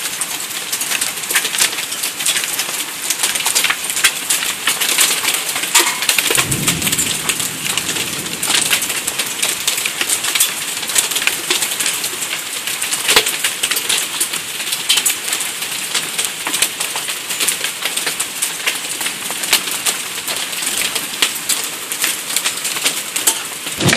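Hail mixed with rain pelting a wooden deck: a dense, steady patter made of countless small ice-pellet impacts. The hailstones are mostly pea-sized, with some nearly ping-pong-ball size.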